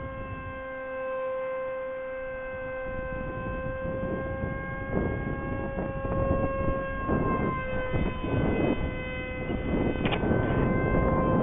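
Steady high whine of an electric RC foam park jet's motor and propeller in flight, dipping slightly in pitch partway through. Gusts of wind rumble on the microphone, growing stronger from about three seconds in.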